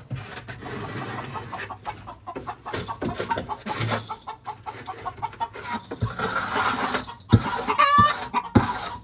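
Hen clucking repeatedly, with a louder, drawn-out call just before the end, over scraping and a few knocks as soiled coop bedding is scraped out.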